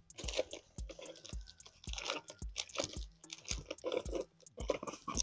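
Crinkling and rustling of the wrapping around a shipped plant's root ball as hands work it loose inside a cardboard box. A soft low beat pulses about twice a second underneath.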